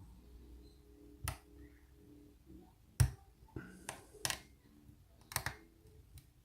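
Lock pick and tension wrench clicking in an American 1100 pin-tumbler padlock: scattered sharp clicks, about eight at irregular intervals, as the lock is picked again after the pins have been reset.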